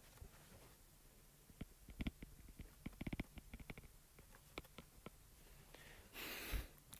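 Faint, scattered clicks and taps of a stylus on a tablet screen while a formula is handwritten, bunched about two and three seconds in, with a brief soft hiss near the end.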